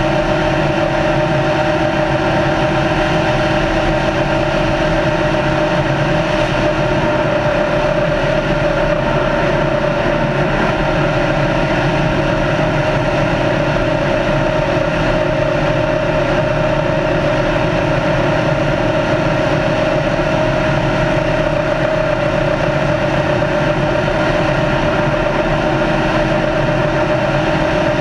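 Race car engine running at a steady high-speed cruise, over a constant rush of wind and tyre noise. Its pitch sags slightly and comes back up about two-thirds of the way through.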